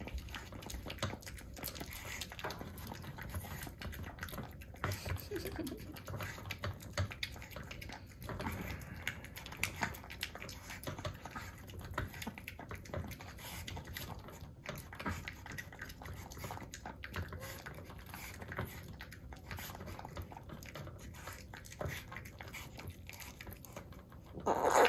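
Two-month-old Boston terrier puppy eating kibble from a bowl: a continuous run of small, irregular clicks and crunches from chewing and from food against the bowl.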